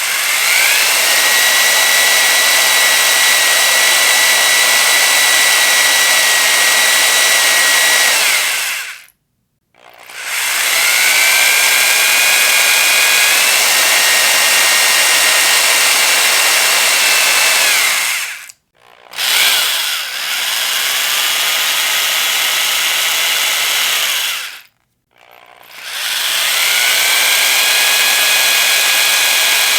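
Electric power drill running in four long bursts, each starting with a rising whine and stopping, with short silent gaps between them.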